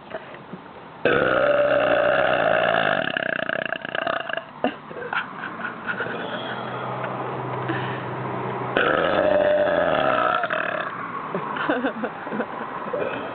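A person letting out two long, loud, deliberate burps, each two to three seconds long: the first about a second in, the second a little past halfway.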